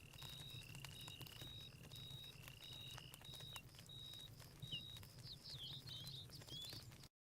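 Night-forest ambience: insects chirping in a steady high pulse about twice a second over a second, lower repeated rising trill, with faint scattered crackles. Near the end a few short bird whistles join in, then the sound cuts off suddenly.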